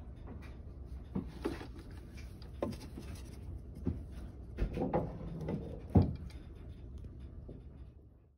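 Handling noises around a plastic tub drain pipe: a string of soft knocks, taps and scuffs as a hand and a cat's swatting paws bump the pipe and the subfloor opening, the loudest knock about six seconds in. A low steady hum runs underneath.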